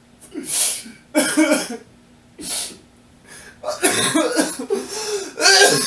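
A man sobbing: short breathy, cough-like sobs and gasps, then from about three and a half seconds in a longer stretch of wavering crying.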